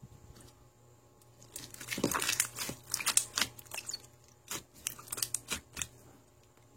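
Crinkling and crackling, a quick run of sharp crackles starting about a second and a half in, thickest in the middle and thinning out into a few separate crackles before stopping near the end.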